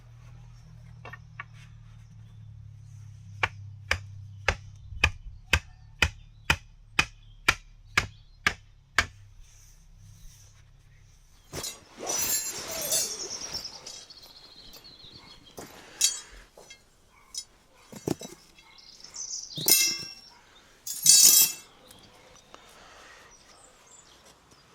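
A mallet driving stakes into the ground: a steady run of about a dozen sharp strikes, roughly two a second, followed by rustling and a couple of louder clattering handling noises near the end.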